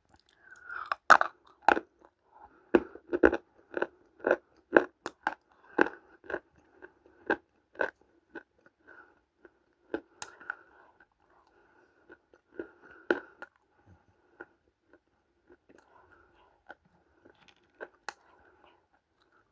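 A person biting into and chewing dry Multani mitti (fuller's earth clay): a loud crunchy bite about a second in, then crisp crunches about two a second, thinning out after about eight seconds, with another loud crunch near the middle.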